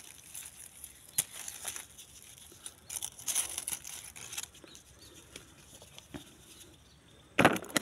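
Dry cucumber vines and leaves rustling as cucumbers are pulled and torn off their stems by hand, with a few sharp snaps, and a loud rustle near the end.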